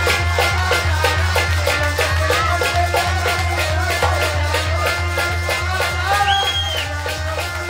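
Live Kashmiri folk music: a harmonium and fast hand percussion keeping a steady beat of about five strokes a second over a low drone.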